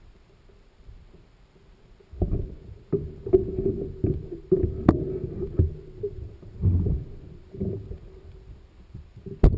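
Mountain bike ridden over rough ground, heard on the bike or rider's camera: irregular knocks and rattles with low rumbling wind buffets, starting about two seconds in.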